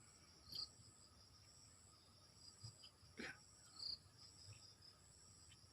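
Faint, steady high-pitched insect chorus, pulsing on and off, with a few soft clicks and one short brief noise about three seconds in.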